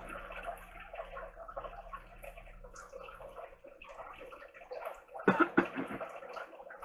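Wooden chopsticks stirring sauced ramen noodles in a plastic tub, a soft wet squishing and clicking, with a short louder burst about five seconds in.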